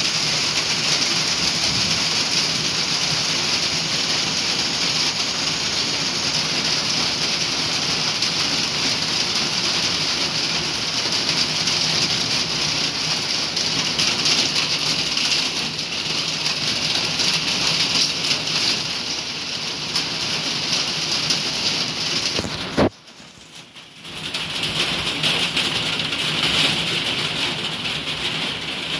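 Steady rain shower falling, a continuous even hiss of drops. About 23 seconds in, the sound cuts out abruptly for about a second, then the rain noise comes back.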